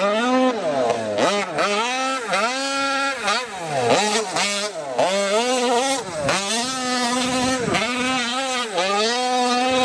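RCMax 71cc two-stroke petrol engine of a large-scale RC truck revving hard over and over, its pitch sweeping up to a brief flat peak at full revs and dropping back with each throttle burst, about every half second to a second.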